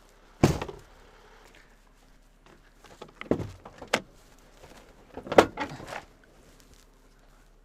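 A few separate knocks and thumps from a pickup truck's door and cab being handled, the loudest about five and a half seconds in, with faint rustling between.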